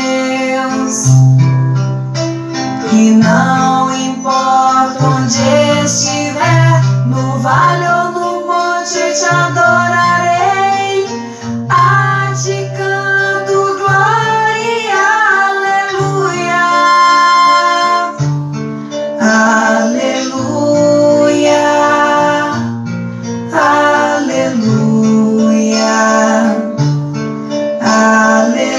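Two women singing a Portuguese worship song together, with acoustic guitar accompaniment.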